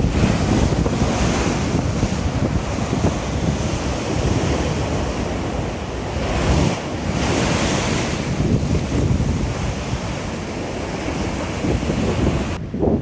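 Wind buffeting the phone's microphone as a low rumble, over waves washing on the shore, with surges of hiss about a second in and again past the middle.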